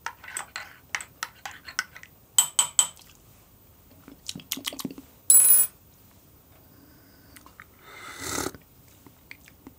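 A small stirring tool clinking and scraping against a ceramic espresso cup as a shot of espresso is stirred, a quick run of ticks over the first few seconds. A single sharp, ringing clink about five seconds in, then a short slurp of the espresso near the end.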